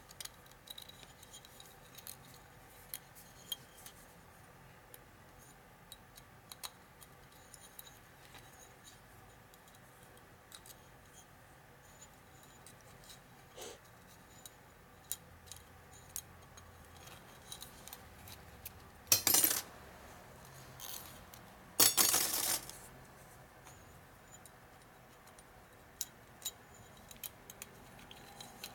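Faint, scattered metallic clicks and clinks of piston rings being worked off an aluminium motorcycle piston by hand. About two-thirds of the way in come two louder, brief rasps a few seconds apart.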